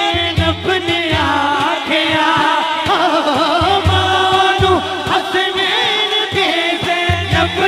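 Devotional Punjabi manqabat sung through a PA: a melodic, wavering vocal line over a chanting backing chorus.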